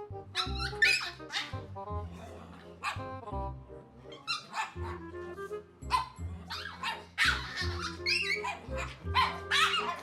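Dog barking and yipping in short, repeated bursts, over a background music track.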